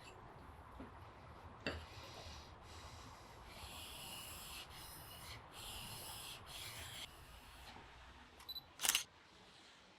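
Chisel blade being rubbed back and forth on a sharpening stone: a series of separate rasping strokes, each under a second long with short pauses between. A single sharp click near the end, louder than the strokes.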